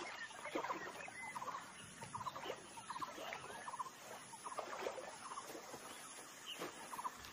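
Faint wildlife ambience of animal calls: short rattling trills repeat many times at irregular intervals, with scattered brief chirps over a light background hiss.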